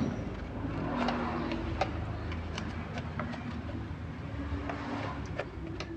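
Scattered light clicks and taps of a Yamaha Mio Soul's plastic cover being pressed and worked into its mounting by hand, over a steady low hum.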